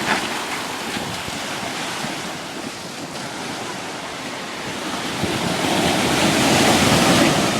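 Ocean surf breaking and washing up the beach, with wind on the microphone; the rush of water swells louder about five seconds in.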